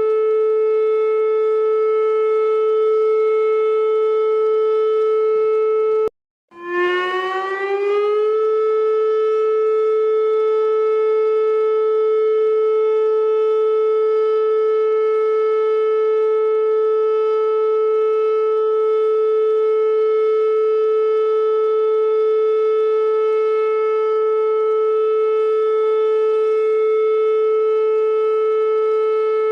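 Alarm siren sounding one loud, steady tone rich in overtones. About six seconds in it cuts out for a moment, comes back low and glides up to the same pitch over about two seconds, then holds steady again.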